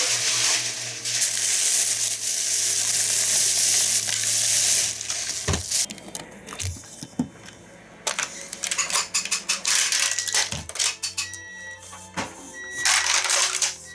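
A steady kitchen hiss for about five seconds, then the crackling and clicking of a clear plastic clamshell food pack as it is handled and opened.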